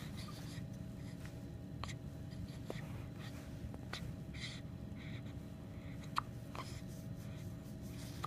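A small child hiccuping quietly: a few short, sharp hics about two seconds apart over a low room hum, the loudest about six seconds in.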